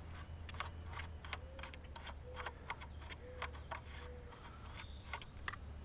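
Irregular light clicks and ticks of a Kopfjäger Reaper grip rifle clamp and its knobs being handled on a carbon fiber tripod, about two to three a second, with a few faint short squeaks in between.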